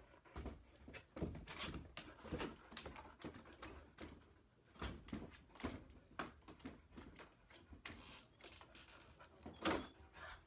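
A husky-type dog pawing and scrabbling at a wooden door and knocking its lever handle, a run of irregular knocks and scrapes. A sharper, louder knock near the end comes as the latch gives and the door opens.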